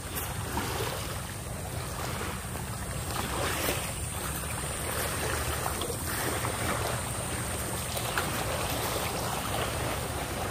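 Wind rumbling on the microphone over the steady wash of waves on the shore.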